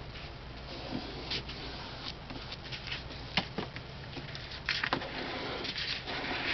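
Paper and cardstock being handled on a worktable: soft rustling with scattered light taps and clicks, louder rustling in the second half, over a steady low hum.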